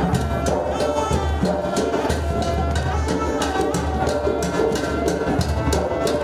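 Upbeat music with a steady beat: bass, pitched instruments and a regular percussion pattern of sharp strikes.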